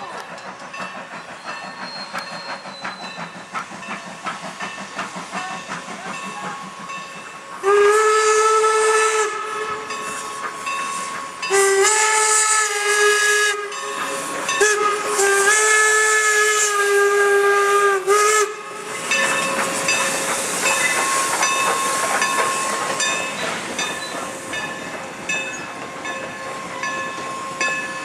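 Norfolk & Western steam locomotive's whistle blown in four long blasts over about ten seconds, starting about eight seconds in. Then a steady hiss of steam with a fast clatter as the engine and its cars pass close.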